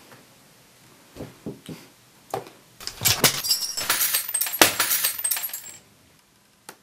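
Glass breaking: a few light knocks, then about three seconds of glass smashing and shards clattering on a floor, cutting off suddenly.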